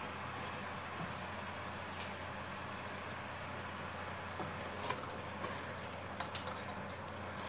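Sugar syrup boiling hard in a pot on a gas burner, a steady bubbling hiss. A few light clicks in the second half come as drained rice is tipped in from a metal colander.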